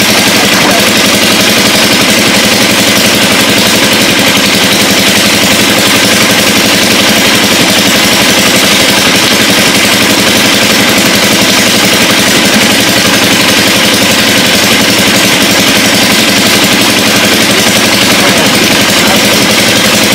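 A small engine running steadily at an even, rapid idle, loud and close, with no change in speed.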